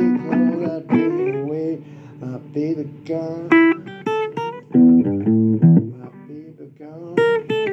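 Blues song in an instrumental guitar break: single-note guitar licks with bent notes, and lower bass notes underneath about five seconds in.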